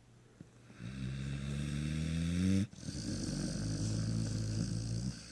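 Sleeping pit bull snoring loudly: two long snores back to back, the first a buzzing one that rises slightly in pitch and stops abruptly, the second rougher and raspier.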